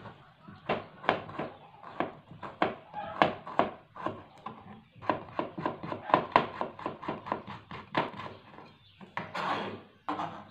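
Kitchen knife slicing shallots against a plastic cutting board: a run of quick, sharp taps, fastest in the middle at roughly five a second, with a short scrape near the end.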